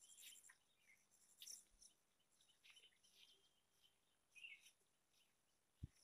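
Near silence outdoors: faint, scattered small-bird chirps over a steady high insect hum, with one soft low thump near the end.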